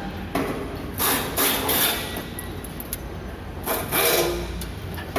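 Workshop noise on a heavy-equipment assembly line: a few hissing bursts about a second long, with a low rumble underneath.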